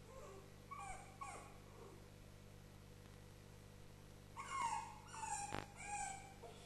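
West Highland white terrier whimpering and yipping out of sight: a few short, soft whines in the first second and a half, then three louder, high calls falling in pitch about four to six seconds in.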